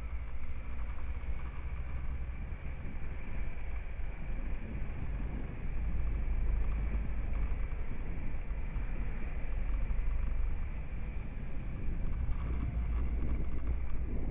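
Tow vehicle rolling slowly with a boat trailer behind it, a steady low rumble of engine and tyres on the paving stones, heard through a camera mounted on the vehicle; it grows a little louder about six seconds in.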